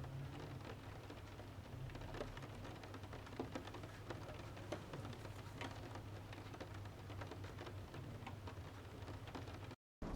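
Rain falling steadily, with many separate drops ticking and pattering over a low, even rumble. The sound cuts out completely for a moment near the end.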